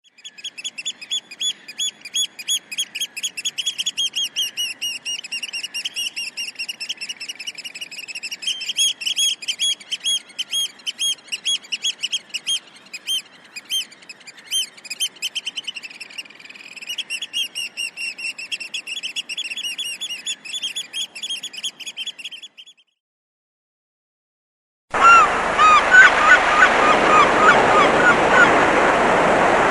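Gulls calling: a long run of rapid, high, repeated call notes that stops abruptly a little before three-quarters of the way through. After a short silence, a louder stretch of lower gull calls comes in over the wash of surf.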